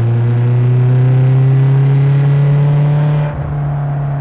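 Lotus Elise's Toyota four-cylinder engine and exhaust pulling hard, the note rising steadily, then a short dip about three seconds in as the gear changes, after which it carries on lower. The exhaust has a throaty, crunchy note that the presenter believes comes from a non-standard exhaust.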